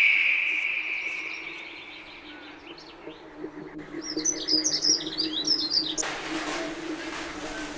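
Small birds chirping and twittering, with a long high tone fading away at the start and a hiss coming in near the end over a steady low hum.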